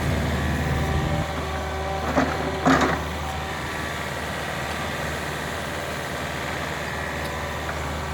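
Diesel engine of an excavator running steadily, with a couple of short metallic clanks a little over two seconds and near three seconds in.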